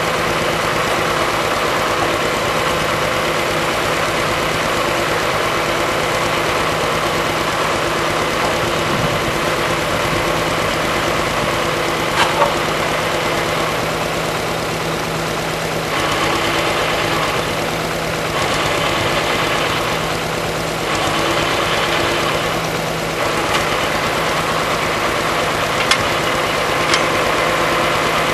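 1955 Allis-Chalmers WD-45's six-cylinder diesel engine idling steadily. About halfway through, extra noise comes and goes in three stretches of a couple of seconds each, with a few sharp clicks, as the hydraulic lift arms are raised and the power take-off is switched on and off.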